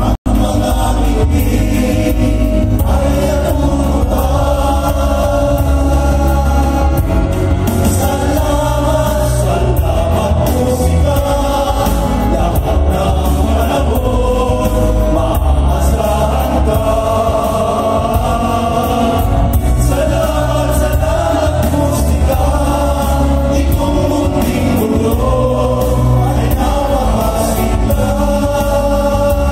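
A male vocal group sings together into microphones over amplified musical accompaniment with heavy bass. The sound cuts out for an instant near the start.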